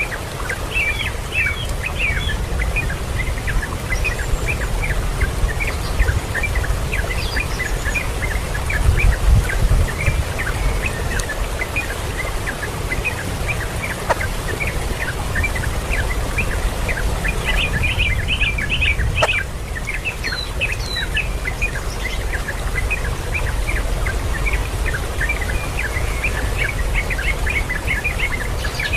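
Birds chirping in many short, quick high notes, with brief flurries of faster chirps, over a steady low rumble.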